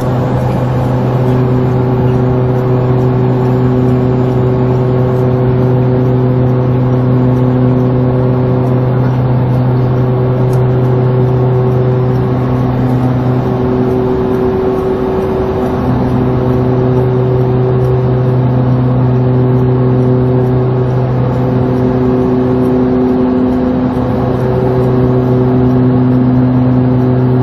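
Cockpit drone of the Embraer EMB-121 Xingu II's twin Pratt & Whitney PT6A turboprops in flight: a steady propeller and engine hum whose tones swell and fade every few seconds.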